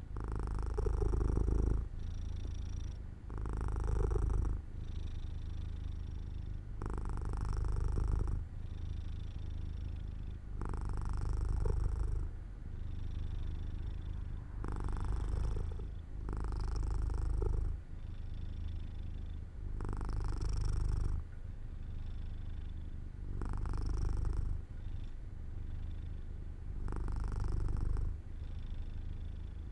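Domestic cat purring steadily as it dozes. The purr rises and falls with its breathing, swelling louder on one phase of each breath about every three to four seconds.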